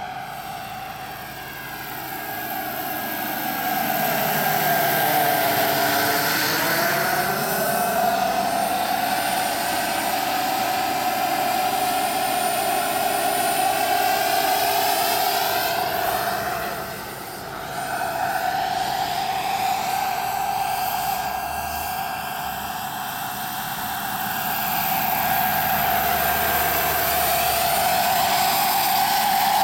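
The JetCat PHT3 turbine of a 1:4-scale EC 145 model helicopter in flight, a steady high whine with the rotor's rush. There is a swirling sweep in pitch about five seconds in as it passes, and the sound briefly drops away about seventeen seconds in.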